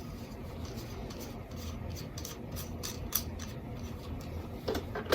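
Faint handling sounds of small parts: light rubbing and a few scattered clicks as a USB charging socket is worked into its hole in the panel.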